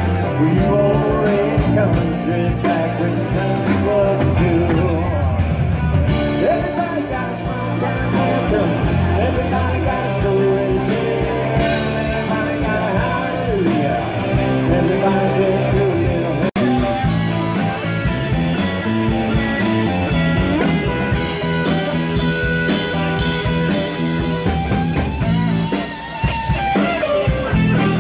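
Live rock band playing, with guitar prominent.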